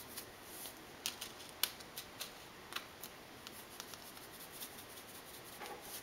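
Hand pepper mill being twisted to grind pepper, giving scattered sharp clicks, most of them in the first three seconds and then only a few faint ticks.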